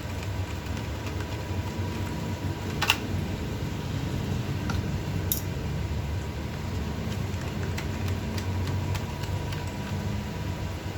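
Steady low hum of a fan running, with a few faint clicks and taps of small tools working on a drone gimbal. The sharpest click comes about three seconds in, and another about five seconds in.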